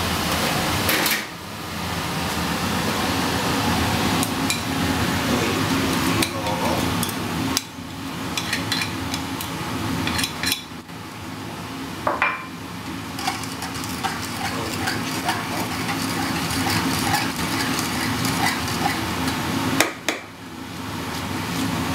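A metal fork scraping and clinking against an aluminium frying pan as spaghetti is tossed with the egg and cheese mixture for carbonara, with short clatters of pan and utensils over a steady background hum.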